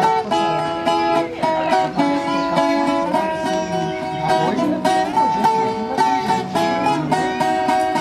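Violas caipiras, the Brazilian ten-string folk guitars, plucked together in an instrumental moda de viola tune, with quick rhythmic strummed and picked notes.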